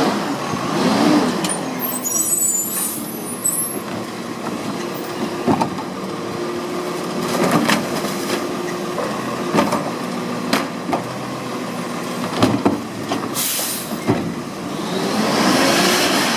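Garbage truck's diesel engine running steadily, with several sharp knocks and bangs and bursts of air-brake hiss near the start and near the end.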